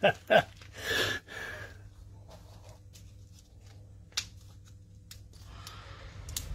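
Clear plastic wrapping crinkling and rustling as it is handled and unwrapped by hand, with a few sharp clicks near the start and one a little after four seconds in.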